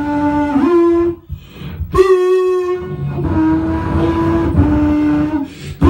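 Beatboxing into a handheld microphone: long held vocal notes that step between a few pitches, over a low rhythmic beat. The sound drops out briefly a little over a second in, then a loud, bright held note starts at about two seconds.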